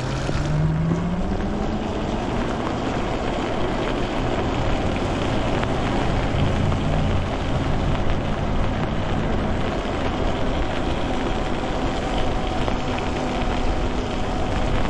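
Electric bike's motor whining, rising in pitch as it accelerates over the first couple of seconds and then holding steady. Under it is the swish of tyres on wet pavement, with wind on the microphone.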